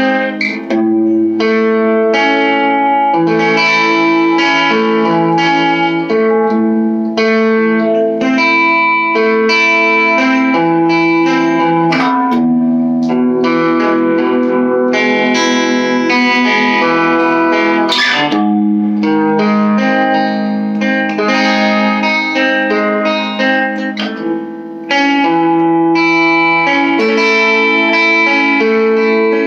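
Electric guitar with two pickups played through a small all-tube amp, with a clean, lightly overdriven tone. Chords ring on and change about once a second, with short breaks about twelve and eighteen seconds in.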